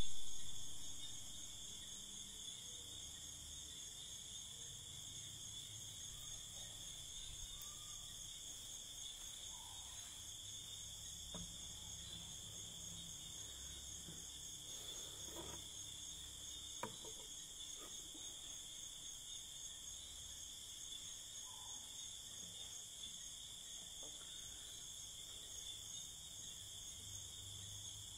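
Steady high-pitched chirring of insects over a low hum, opening with a brief loud thump that fades, and a few faint knocks and taps later on.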